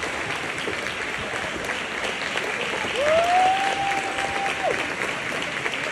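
A gym crowd and a team applauding steadily. About three seconds in, someone lets out one long whistle over the clapping.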